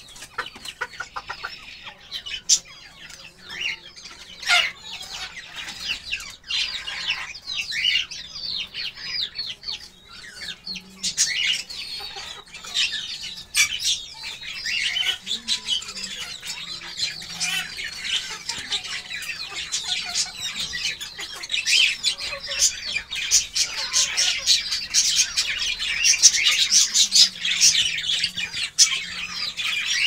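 Chickens clucking among a dense chatter of short, high chirping bird calls, with now and then a flutter of wings; the chirping grows busier toward the end.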